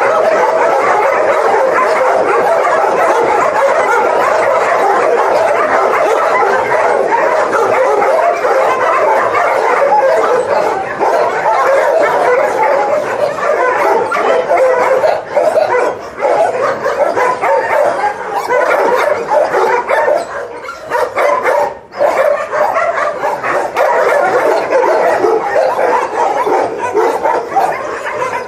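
A pack of shelter dogs barking and yelping together in a continuous, overlapping din. It thins somewhat in the second half, with a couple of brief lulls.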